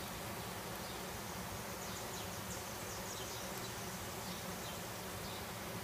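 Many honeybees buzzing together in an open hive, a steady, even hum.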